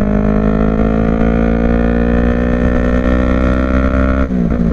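Yamaha MT-03's two-cylinder engine breathing through a Paolucci aftermarket exhaust, pulling steadily under way with its revs slowly rising, heard from the rider's seat.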